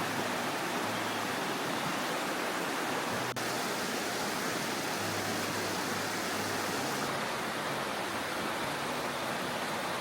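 Steady rushing of flowing water, as from a stream or small waterfall, with two abrupt shifts in its tone.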